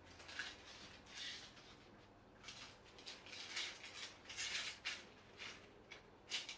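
Stunt kite's sail fabric and spars being handled during assembly: about ten short bursts of rustling and scraping.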